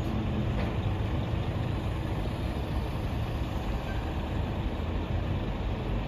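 Steady low rumble of city street traffic.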